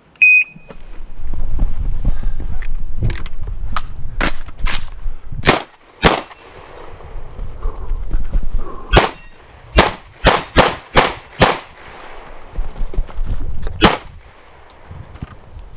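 The electronic shot timer beeps its start signal, then a pump or semi-auto shotgun fires about a dozen shots at uneven spacing as the shooter runs an IPSC stage. Some shots come in quick pairs, and others have longer gaps between them. A low rumble runs under the early and late parts.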